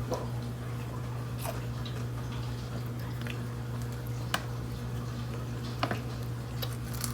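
Someone eating deep-fried ice cream: a few short, sharp crunchy clicks and soft mouth sounds, spaced out, over a steady low hum.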